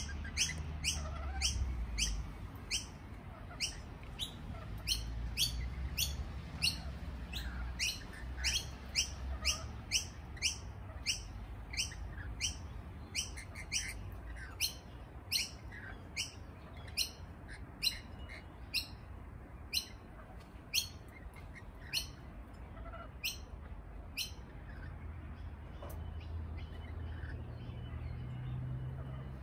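Lorikeets calling with short, high chirps, repeated about two a second, growing sparser and fainter near the end, over a low rumble.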